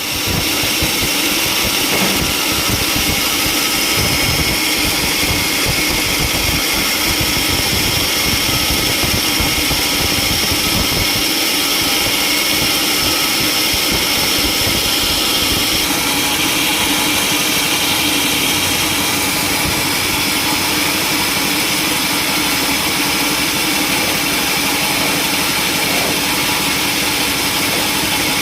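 Sawmill saw running steadily with a high whine that changes pitch about halfway through.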